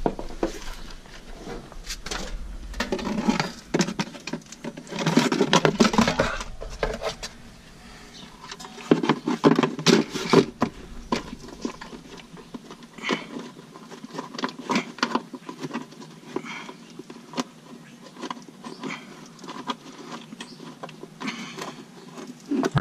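Hand tools and metal parts being handled during work under a car: irregular small clicks, taps and scrapes, busier and louder in stretches a few seconds in and again around ten seconds in.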